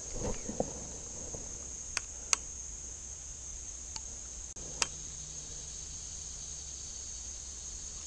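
Steady high-pitched chorus of insects such as crickets trilling. Over it come a few sharp clicks from handling a spinning rod and reel during a cast and retrieve, two near two seconds in and two more around four to five seconds.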